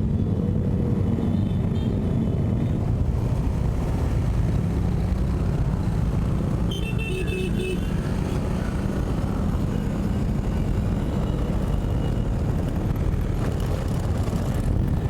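Steady motorcycle engine and road noise heard from the rider's position in traffic, with a short high-pitched tone about halfway through.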